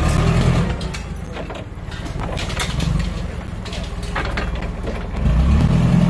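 Propane forklift engine running with a low, steady engine note that grows louder again about five seconds in.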